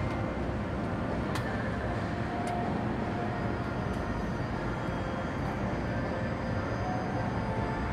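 Steady city traffic noise from an intersection: engines and tyres of cars, motorcycles and a heavy truck passing. Two short clicks stand out, about a second and a half in and again a second later.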